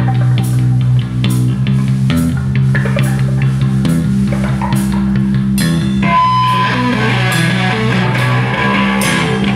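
Live rock band playing: a low bass guitar line moving in held steps over regular drum kit hits. About six seconds in, an electric guitar comes in strongly on top.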